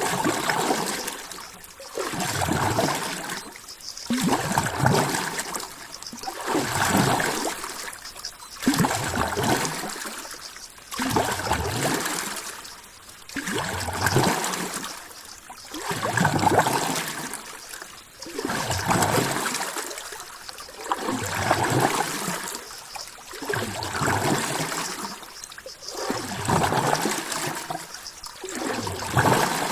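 Water trickling and splashing in regular surges, swelling and falling back about once every two seconds.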